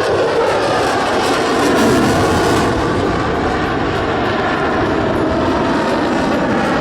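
Jet noise from an F-22 Raptor's twin Pratt & Whitney F119 turbofans as it flies a display pass: a loud, steady rush that swells slightly about two seconds in.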